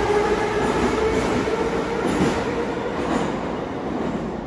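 81-718/719 metro train running, its wheels rumbling on the rails, with the whine of its thyristor-pulse traction control. The whine fades out about three seconds in and the whole sound grows fainter as the train moves away.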